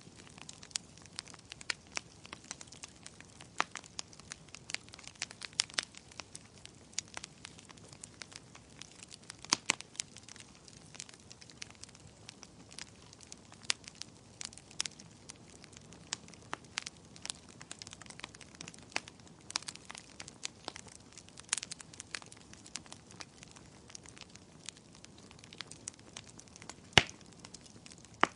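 Wood fire crackling: irregular sharp pops and snaps over a soft steady hiss, with one louder pop near the end.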